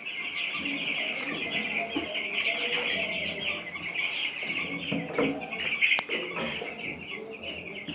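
A brooder full of week-old broiler chicks peeping continuously, many high chirps overlapping. There is one sharp click about six seconds in.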